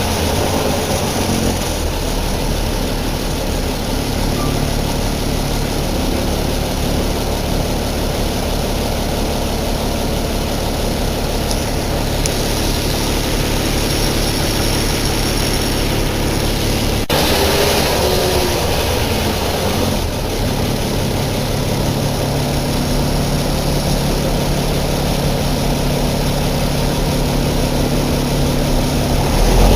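Deutz BF6L 913 C air-cooled turbocharged diesel engine of a 1997 Deutz–El Detalle OA 101 city bus running steadily, with a single sharp click a little past halfway.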